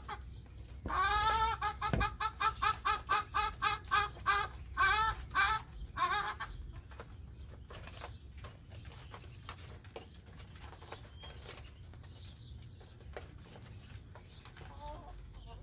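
Chickens clucking in a fast run of repeated calls, about four a second, for the first six seconds or so, then going quieter. Through the quieter part come scattered light ticks of beaks pecking food off a plastic tarp.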